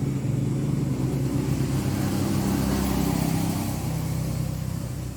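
A motor vehicle's engine running, its low hum growing fainter near the end.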